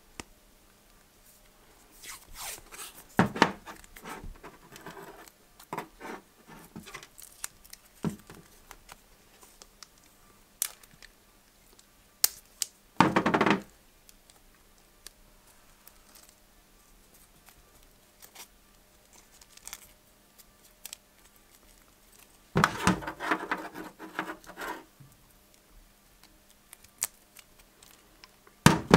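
Electrical tape being pulled off its roll and torn, in several short bursts with pauses between, amid small clicks and knocks of wires and tools being handled.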